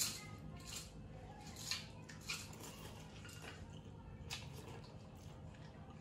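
Quiet eating sounds: a few short wet smacks and clicks from chewing and from fingers working rice, fried fish and ginamos, over a faint steady hum.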